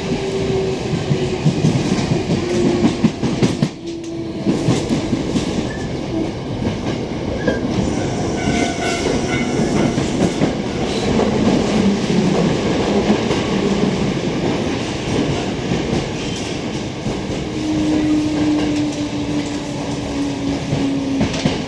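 Hankyu 7000 series electric train running, heard from inside the car: steady rolling noise with wheels clacking over rail joints. A motor whine slides down in pitch over the first few seconds, and another falls slightly near the end.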